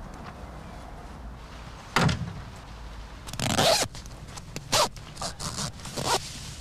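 A zip pulled in quick strokes: a sudden loud one about two seconds in, a longer one a little later, then several short rapid ones.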